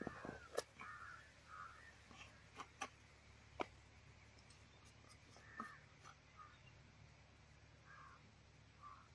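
Crows cawing faintly, a short harsh call repeated about eight times at uneven intervals. A few sharp clicks and taps come from spice containers being handled close by.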